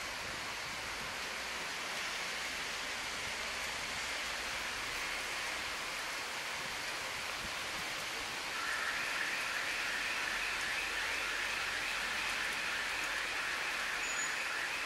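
Heavy rain falling on trees, parked cars and the street: a steady hiss. A little past halfway, a steady high buzz made of rapid pulses joins in and keeps going.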